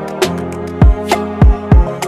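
Background music with a beat of deep, pitch-dropping bass drum hits under sustained melodic tones.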